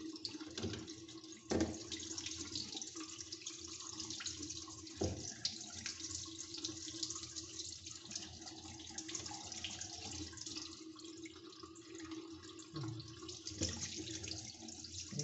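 Tap water running steadily into a bathroom sink while a small canister-filter part is scrubbed with a toothbrush under the stream, with light splashing. Two sharp knocks come in the first third.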